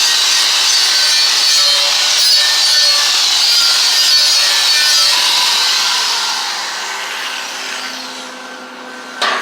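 Steel wire brush scrubbing slag off a 7018 stick weld bead on steel plate: a steady, loud scraping that fades out about two-thirds of the way through. A sharp click comes near the end.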